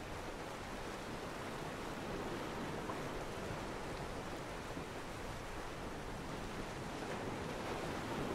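Small waves washing onto a beach: a steady, even hiss of surf.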